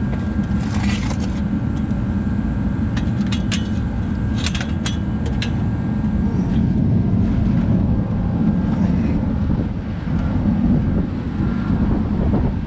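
Steady low rumble of a vehicle running, with a few sharp clicks in the first half.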